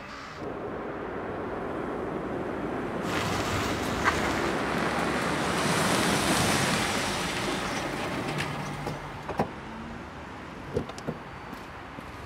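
A car passing by: its noise swells over a few seconds and then fades, followed by a few sharp clicks.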